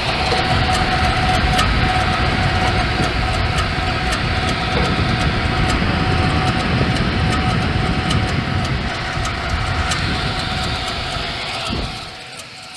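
Squirrel-cage blower fan of a Trane XE80 furnace running loud with its panel off: a steady whir with a steady whine and irregular ticking. It shuts off abruptly about twelve seconds in. The owner calls it crazy noise and suspects a problem at the fan fins or spindle.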